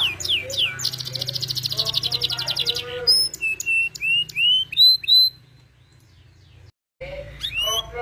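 Domestic canary singing: quick downward-sliding whistles, then a fast rolling trill for about two seconds, then separate chirps and rising whistles. The song stops a little past halfway and starts again near the end.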